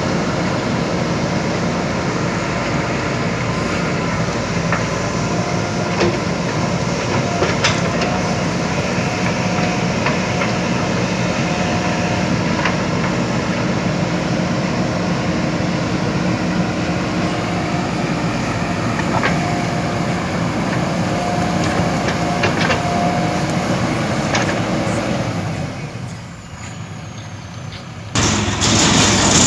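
Heavy diesel machinery, a backhoe loader working beside a tractor, running steadily with a few sharp metallic knocks. The sound drops away about 26 seconds in and returns abruptly near the end.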